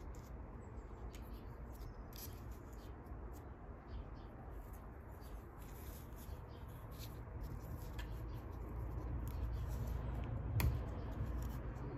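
Small scratching and clicking sounds of hands working on a threaded pressure-washer hose fitting, over a low steady hum, with one sharper click about ten and a half seconds in.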